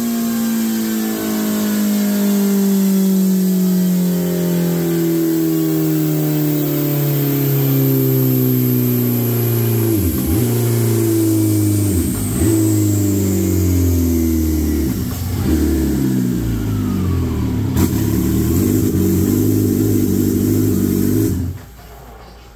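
Turbocharged Suzuki Hayabusa engine running on a motorcycle dyno, its pitch falling slowly and steadily as it winds down, with a faint high whine also dropping in pitch early on. The engine cuts off suddenly about a second before the end.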